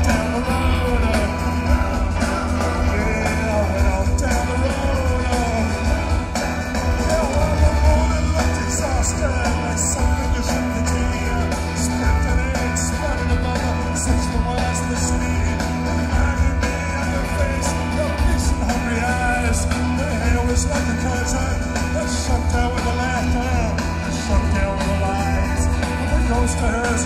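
Live rock band playing a loud, steady passage of a song, with a heavy low end.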